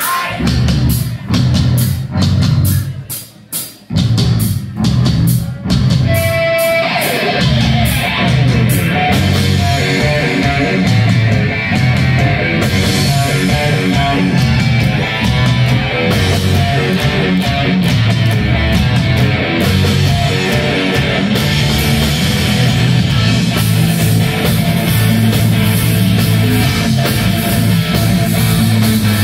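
Live heavy metal band playing electric guitar and drum kit. It opens with short stop-start hits and a held guitar note about six seconds in, then breaks into full, continuous playing.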